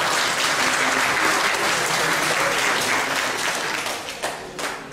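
Audience applauding in a hall, steady at first and thinning out into a few scattered claps near the end.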